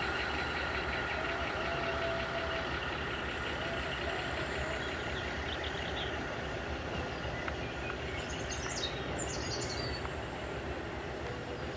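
Diesel railway engine running steadily, its stack of engine tones fading about halfway through. A bird chirps a few times near the end.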